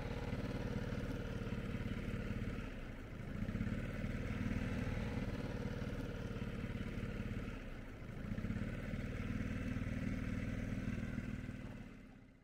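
Small boat's motor running steadily under way, dipping briefly in level twice, about three and eight seconds in.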